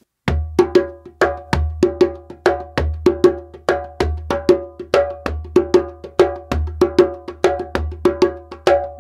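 Djembe played by hand in a steady repeating rhythm, about three to four strokes a second, with sharp ringing strokes over a deep low boom.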